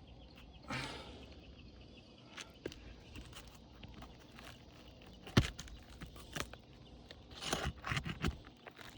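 Scrapes and sharp knocks on a roof of brittle asphalt shingles: a short scrape about a second in, one loud knock about halfway through, and a cluster of scrapes and clicks near the end.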